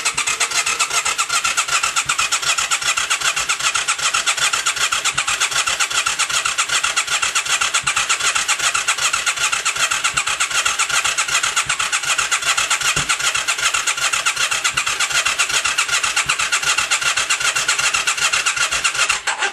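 Yamaha XV535 V-twin being cranked by its electric starter, turning over at an even, fast rhythm without catching, and stopping near the end. The bike won't start after a starter clutch replacement.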